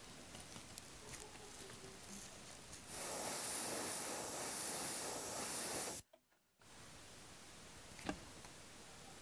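Paint being sprayed onto a lure: a steady hiss that starts about three seconds in, lasts about three seconds and cuts off abruptly. A single sharp click comes near the end, and there are light handling rustles before the spray.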